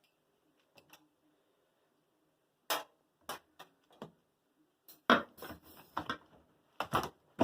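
Irregular sharp clicks and knocks of hand work on a Samsung front-load washer's cabinet and door boot clamp, sparse at first and growing busier and louder in the second half.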